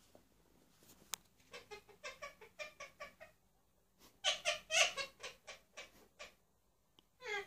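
Indian ringneck parakeet chattering in quick runs of short, speech-like syllables, a softer bout followed by a louder one about four seconds in.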